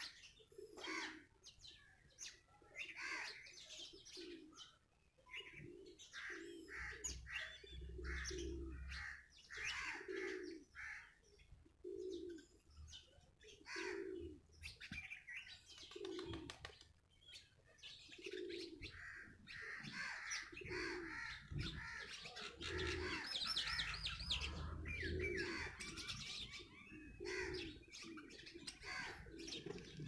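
House sparrows chirping in short, irregular calls, busier about two-thirds of the way through, with a low call repeating every second or two underneath.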